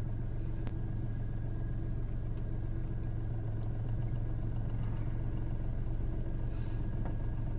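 Car engine idling steadily with a low hum while the vehicle stands still.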